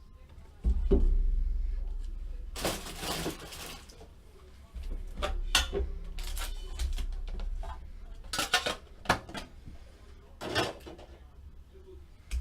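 Handling noise on a table as the next card box is set up and opened: a low thump about a second in, a rustling burst a few seconds later, then scattered knocks, clicks and scrapes of cardboard and packaging.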